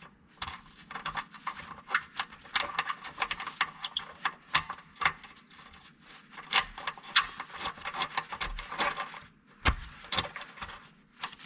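Hand tools on a bolt: irregular metal clicks, taps and scraping as a bolt on an engine bracket is turned in and tightened, with one louder knock near the end.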